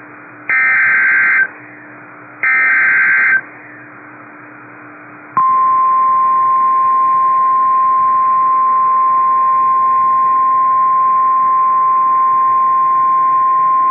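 Emergency Alert System signal on NOAA Weather Radio: two roughly one-second bursts of SAME header data tones about a second apart. Then, about five seconds in, the steady 1050 Hz warning alarm tone begins and holds. The signal announces a severe thunderstorm warning.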